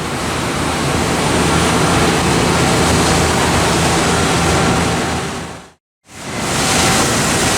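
Steady loud rushing noise of machine-shop background with a faint hum, broken by a brief dead-silent cut about six seconds in.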